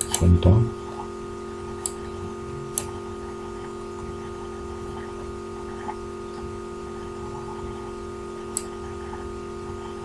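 A few sharp, isolated computer mouse clicks, seconds apart, over a steady background hum. A short low thump right at the start is the loudest sound.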